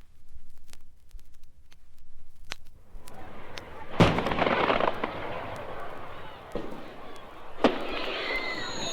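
Sound-effects record of fireworks: after a few seconds of record surface clicks, a noisy wash like a crowd comes up, with sharp bangs about four seconds in and twice more later, and falling whistles starting near the end.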